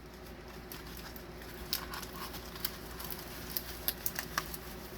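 Packaging being handled: scattered light taps, clicks and rustles as a diamond painting kit is put back into its cardboard box, more frequent in the second half.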